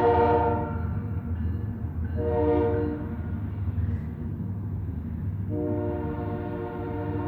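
Train horn blowing three times: a blast that stops just under a second in, a short blast a couple of seconds in, and a long blast from about halfway on, over the low rumble of the train. The horn has a warbly, eerie tone, which the recordist puts down to a bubble or some liquid in the throat of the horn.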